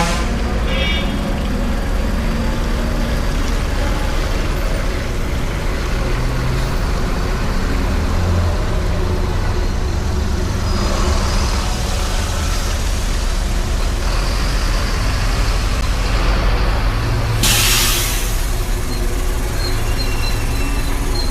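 Heavy vehicle's engine running with a steady low rumble, broken about three-quarters of the way through by a short hiss of air brakes.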